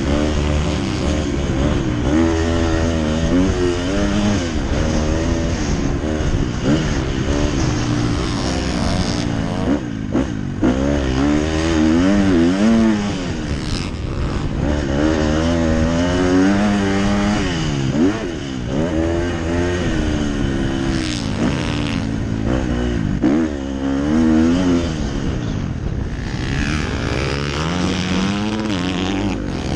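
Motocross bike engine heard from the rider's helmet, revving up and falling back over and over as the rider accelerates, shifts and rolls off through the track's turns and jumps. There are brief throttle cuts about ten and eighteen seconds in.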